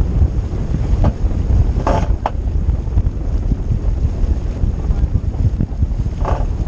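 Wind buffeting the microphone on a 49er skiff under sail, with water rushing along the hull. A few brief, sharper noises come about a second, two seconds and six seconds in.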